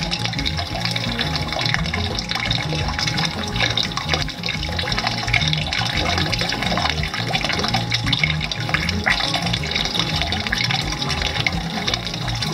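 Water running steadily down a plastic riffled bucket sluice and splashing into the bucket beneath, the flow set low while black sand is fed in to test how much water washes it out.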